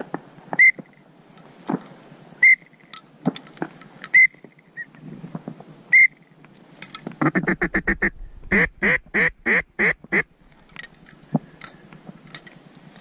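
Duck quacking in mallard style: a fast chatter begins about seven seconds in, then a run of about seven loud, evenly spaced quacks. Before that come four short, high whistled notes a couple of seconds apart.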